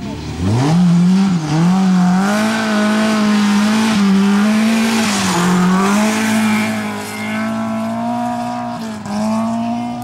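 BMW E30 M3 rally car's engine revving hard on a loose gravel stage: the pitch climbs steeply about half a second in, then stays high with a few brief dips as the driver shifts or lifts. A burst of noise from the tyres on the gravel comes around five seconds in.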